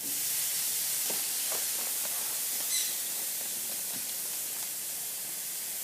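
Marinated chicken sizzling on a hot grill, a steady high hiss that starts suddenly as the pieces go down and eases off slightly. A few faint knocks and a short high chirp sound over it.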